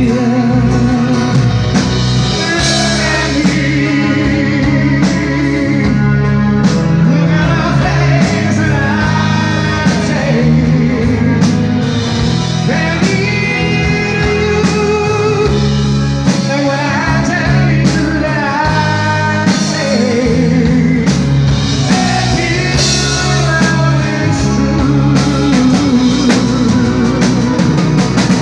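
Live band music with a man singing, backed by acoustic guitar, drum kit and keyboard, loud and steady.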